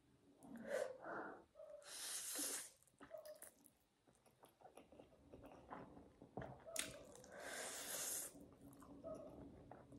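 A person eating noodles with chopsticks: two long hissing slurps, about two seconds in and again near the end, with chewing and breathing between.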